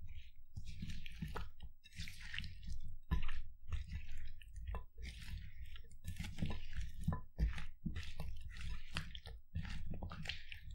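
Dressed cucumber slices being stirred and turned with a spatula in a porcelain bowl: irregular wet squelching and scraping strokes, one every half second to a second.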